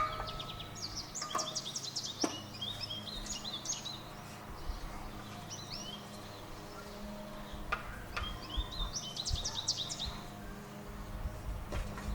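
Songbirds singing in repeated short trilled phrases, with a few faint knocks.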